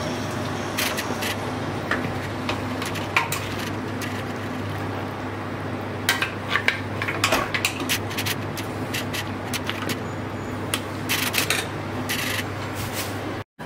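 Metal ladle clinking and scraping against a stainless steel pot while serving stew into a ceramic bowl, in irregular knocks and scrapes. A steady low hum runs underneath.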